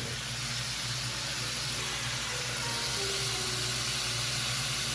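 Butter, garlic and ginger sauce, with fish sauce and garlic powder just added, sizzling steadily in a pan over a low steady hum.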